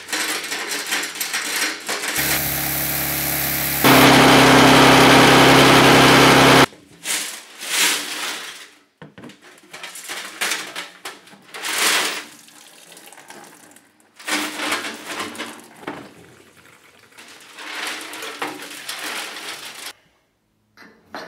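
Metal chain rattling into a steel fuel tank, then a push lawnmower's small single-cylinder engine running for about four seconds, louder from about four seconds in, to shake the tank and chain loose of varnish; it stops suddenly, followed by scattered metallic clanks and knocks as the tank is handled.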